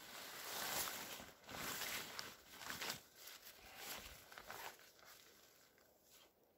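Camouflage poncho fabric rustling and crinkling in irregular bursts as it is handled, dying down near the end.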